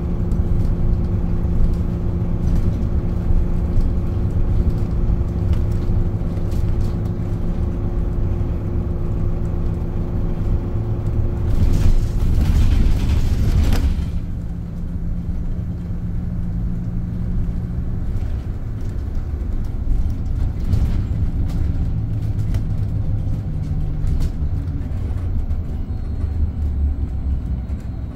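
Scania Higer Fencer F1 Integral electric bus running: a steady low rumble with a constant hum that fades out partway through. About twelve seconds in, a louder rushing hiss lasts for about two seconds.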